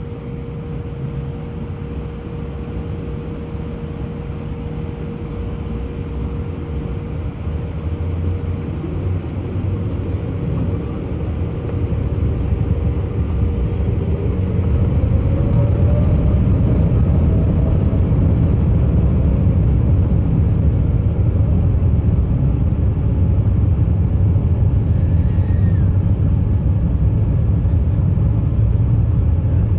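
Airliner heard from inside the cabin: a steady low engine rumble that grows louder over the first fifteen seconds or so, then holds. Partway through, a faint whine rises in pitch.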